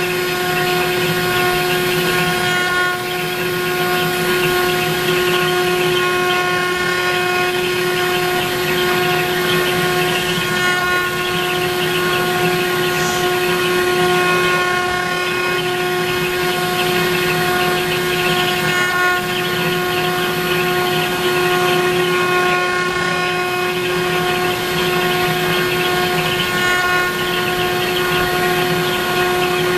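CNC router spindle running with a steady whine while its bit mills a pocket in MDF, with a continuous rasp of cutting under it.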